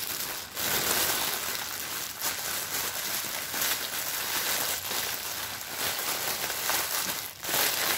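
Clear plastic bag crinkling and rustling without a break as it is handled and pressed flat, packed with many small plastic sachets of diamond-painting drills.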